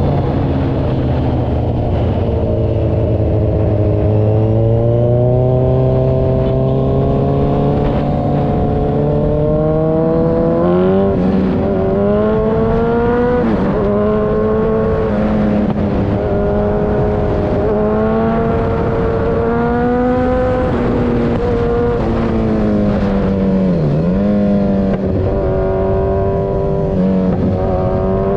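Kawasaki Z1000 Sugomi's inline-four engine running loud through an aftermarket Avionic V4 exhaust. Its pitch climbs slowly at first, then rises and drops several times with the throttle, with a sharp dip near the end.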